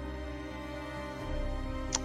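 Background music of long held notes, with one short click just before the end.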